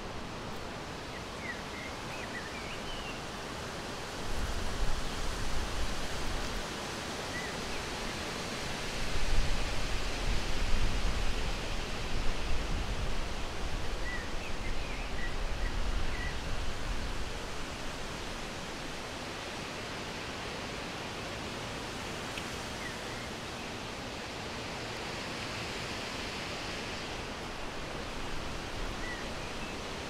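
Steady outdoor hiss of wind, with gusts buffeting the microphone about four seconds in and again from about nine to seventeen seconds. A few faint, short bird chirps are scattered through it.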